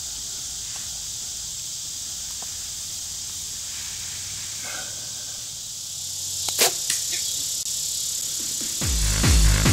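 Steady high hiss of insects, then about six and a half seconds in a single sharp snap of a compound bow being shot, with a few smaller clicks around it. Electronic music with a heavy beat starts near the end.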